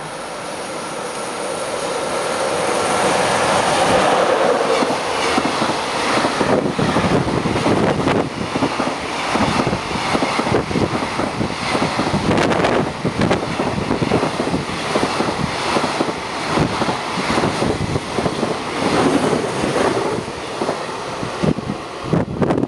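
Container freight train passing at speed close by. A rising rush as it approaches over the first few seconds, then a long run of rapid wheel clacks as the wagons go by, fading as the last wagon passes near the end.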